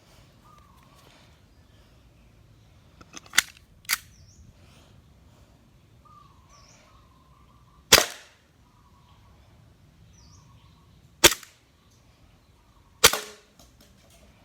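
Airsoft Glock 17 pistol firing BBs: five sharp cracks at uneven intervals, two of them close together early on, then single shots a few seconds apart.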